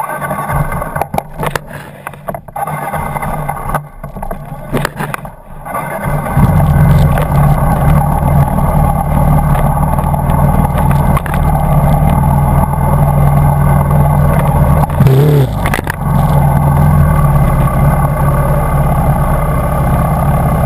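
Dirt bike engines running: uneven at first, then a loud, steady engine sound from about six seconds in, with a brief wavering in pitch near fifteen seconds.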